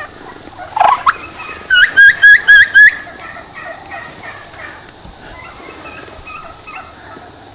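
Wild turkeys calling close by: one rising note, then a quick run of five loud notes, followed by softer scattered calls from the flock.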